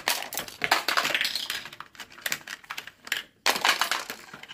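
Small plastic toy kitchen pieces clicking and clattering against a hard plastic carry case as they are set into its slots, a run of light, uneven taps with a short lull about three seconds in.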